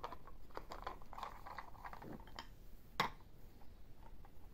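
Small plastic toy parts and screws clicking and rattling as they are handled and worked with a toy screwdriver, with one sharper click about three seconds in.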